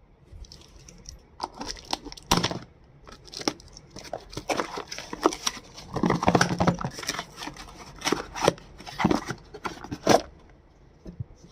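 Earbuds' retail packaging being opened by hand: irregular tearing, crinkling and sharp clicks of plastic and cardboard, busiest about halfway through and stopping shortly before the end.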